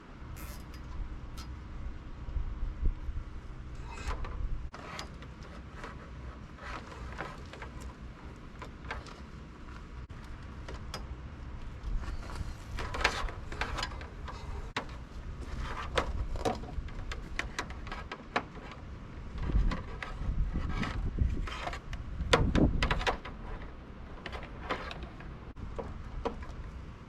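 Scattered clicks and rustles of wiring harness connectors and cords being handled and plugged together, with a few heavier thumps about two-thirds of the way in, over a steady low rumble.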